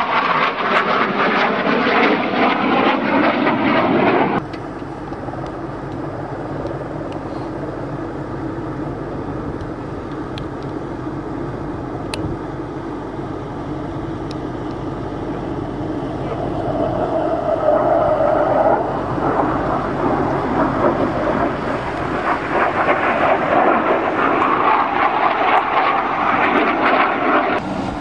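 Military jet aircraft flying past, their engine noise swelling and fading. The noise is loud at the start, drops abruptly about four seconds in, stays steadier and quieter through the middle, then builds again toward the end.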